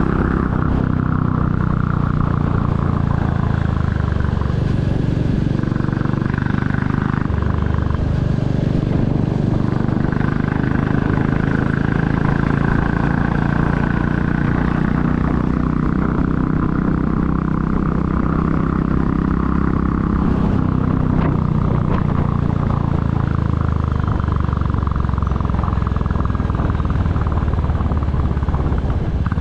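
2022 Royal Enfield Classic 350's air-cooled single-cylinder engine and exhaust running under way, a steady loud note whose pitch shifts a few times as the engine speed changes.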